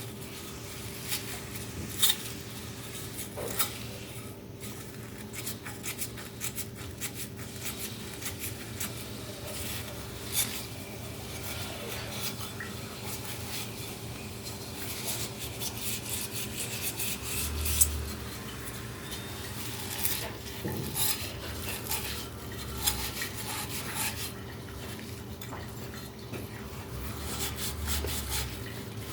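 Irregular clinks, taps and scraping of hand tools working on a hard object, with a faint steady hum underneath and a couple of dull thuds.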